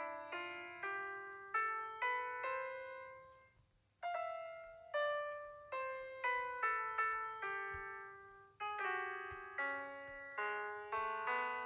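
Background piano music: a gentle melody of single struck notes, each dying away, which fades out briefly about three and a half seconds in and then starts again.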